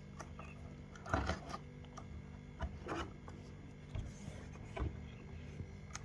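Hands handling a camera box and its packaging: irregular rustling with a few knocks and clicks, the loudest about a second in, over a steady low hum.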